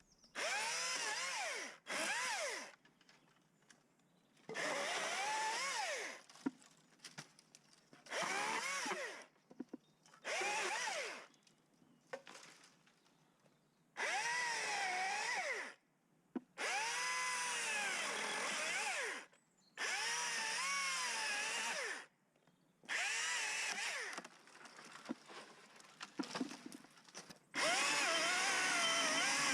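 Top-handle chainsaw revving in short cutting bursts, about ten of them, with near silence between. Its pitch dips and recovers in each burst as the chain bites into small branches.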